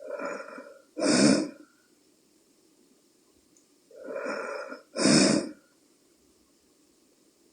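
A woman snoring in her sleep despite a nasal dilator worn in her nostrils. Two snoring breaths come about four seconds apart, each a softer sound followed at once by a louder, noisier one.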